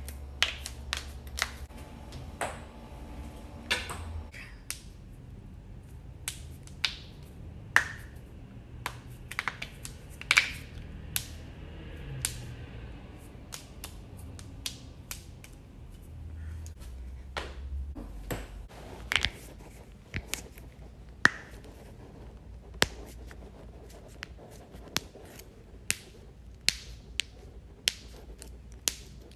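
Human joints cracking: a long series of sharp single pops, irregularly spaced at one to a few a second, some much louder than others, over a low hum.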